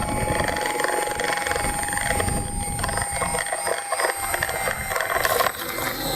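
Ikarus ECO 7 electric R/C helicopter running, heard from a camera slung beneath it: a steady motor whine over the noise of the rotor and rushing air, with a few knocks near the end.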